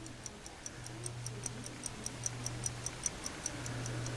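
Old gold pocket watch ticking fast and evenly, about five ticks a second: the movement running again after repair.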